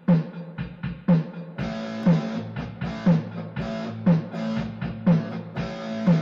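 Intro music with a steady drum beat of about two hits a second. A fuller, sustained band part joins about a second and a half in.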